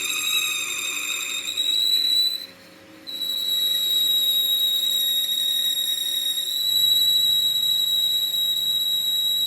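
A steady, high-pitched whistling whine with overtones, wavering slightly at first. It breaks off briefly about two and a half seconds in, then resumes steadily.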